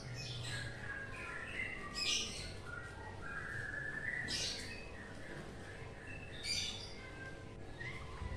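Small birds chirping and twittering, with short high bursts about every two seconds.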